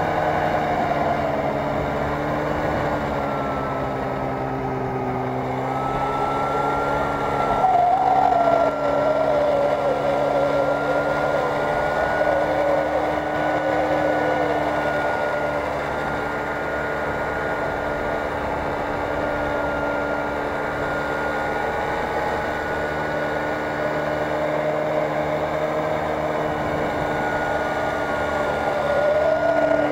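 Snowmobile engine running while the machine is ridden, its pitch shifting with the throttle, with a brief rev about eight seconds in.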